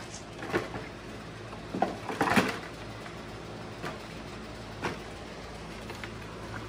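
Plastic rear fender of a Suzuki LT80 quad being handled and set onto the frame: scattered knocks and rattles of hard plastic, a few single clicks, with the loudest cluster a little past two seconds in.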